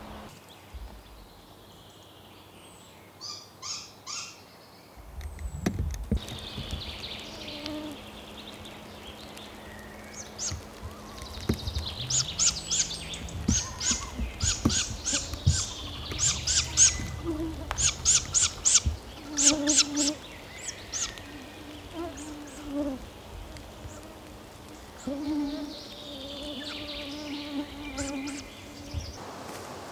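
Great grey owl fledglings calling: short high-pitched calls repeated in quick runs, loudest in the middle of the stretch. A few lower, drawn-out tones come in the second half, over a low rumble.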